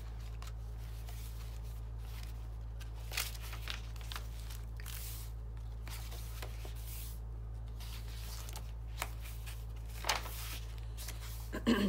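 Pages of a handmade journal of coffee-dyed paper being turned and handled: soft paper rustles with a few brief crinkles, the sharpest about ten seconds in and near the end, over a steady low hum.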